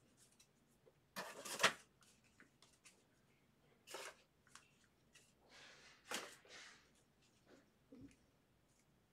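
Trading cards being handled and sorted through by hand: short scratchy rustles and slides with light clicks, the loudest about a second and a half in.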